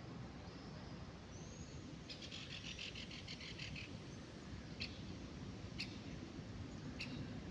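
Small songbirds singing in a park: a few short whistled notes, then a rapid chattering trill lasting under two seconds, followed by three short sharp calls about a second apart, over a low steady background rumble.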